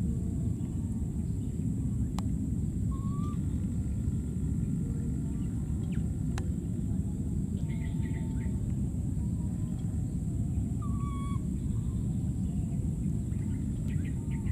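Steady low outdoor rumble with a faint steady high drone over it, and a few faint short chirping calls, about three seconds in, near the middle and again about eleven seconds in.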